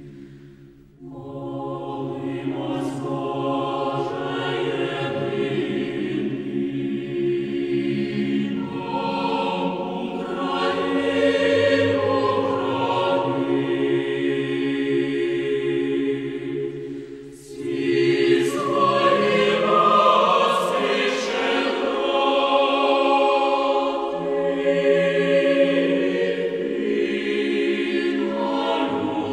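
Choir singing slow, long-held chords in two phrases, with a short break about a second in and another around seventeen seconds in.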